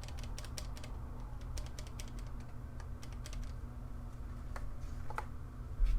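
Keys of a Ducky One 2 Mini keyboard with Cherry MX Silver linear switches being pressed: irregular clacking keystrokes, thicker in the first half and sparser later, over a low steady hum.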